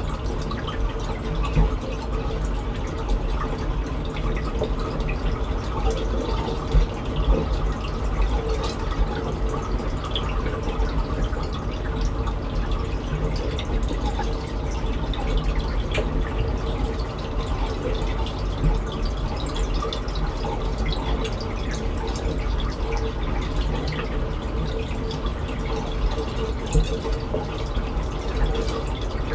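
Water trickling and dripping steadily in a reef aquarium's circulation, over a low steady hum.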